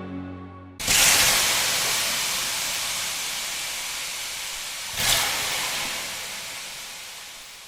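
A sudden loud rushing hiss starts about a second in, surges again about four seconds later, then slowly fades away.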